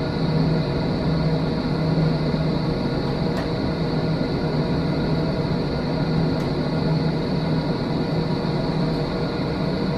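Container freight train wagons rolling past, a steady continuous rumble of steel wheels on the rails, with a few faint clicks.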